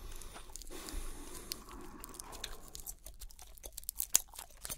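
Chewing gum being chewed close to the microphone while fingers pick at a small gum wrapper; from about three seconds in, a quick run of sharp crackles as the wrapper starts to open.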